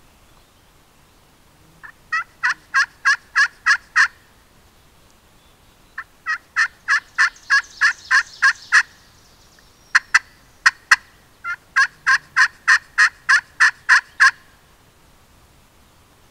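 Turkey yelping: three runs of about seven to ten evenly spaced, loud notes at roughly three a second, with a few short, sharp clucks just before the last run.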